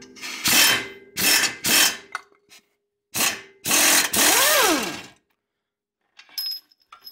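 A power tool on a long socket extension runs in about five short bursts, spinning off the control arm nut that has just been broken loose. The last and longest burst rises and then falls in pitch. A few faint metal clicks follow near the end.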